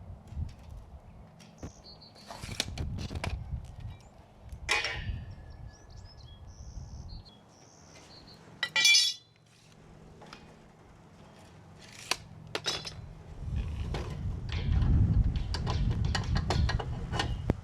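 Cut pieces of steel tubing clinking and clanging as they are handled, with one loud ringing clang about nine seconds in. A low rumble builds near the end.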